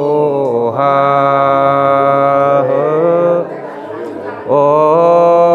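A single voice singing a traditional wedding song unaccompanied, in long held notes that bend and waver. One phrase ends about three and a half seconds in, and the next begins about a second later.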